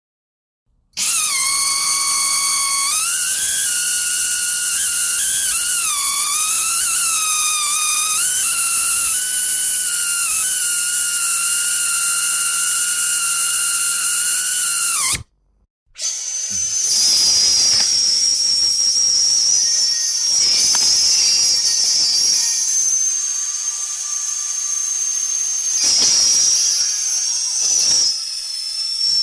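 Dentist's drill whining: first a high whine that wavers up and down in pitch for a few seconds and then holds steady, cutting off about fifteen seconds in. A second, higher-pitched drill whine starts a second later, with a hiss and intermittent rasping.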